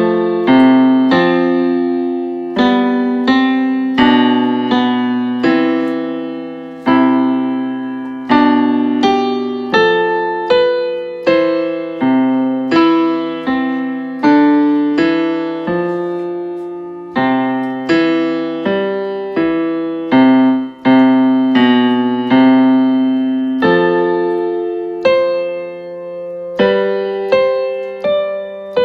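Electronic keyboard played slowly in a piano voice: a simple melody over held chords, each note struck and left to fade, about one note or chord a second.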